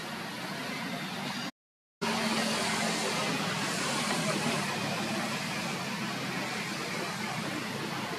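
Steady outdoor background noise: an even rushing hiss with no distinct events, broken by a brief dropout to silence about one and a half seconds in.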